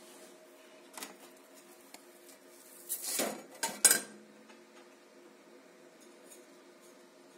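A stainless steel sheet scraping and clinking against the metal work table of a fiber laser marking machine: a short scrape about three seconds in, then two sharp metallic clinks. The machine hums faintly and steadily underneath.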